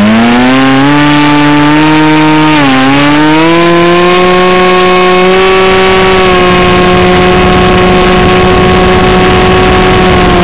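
ParkZone Stryker RC flying wing's electric motor and pusher propeller running at high throttle in flight, heard up close from the wing: a loud, steady buzzing whine. Its pitch dips briefly about three seconds in, recovers, and drops slightly near the end.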